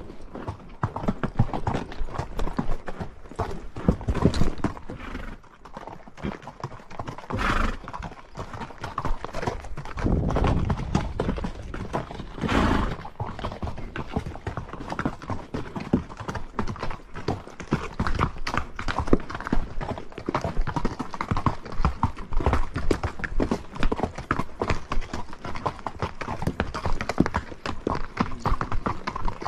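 A horse's hooves clip-clopping steadily at a walk along a trail, in an even run of footfalls.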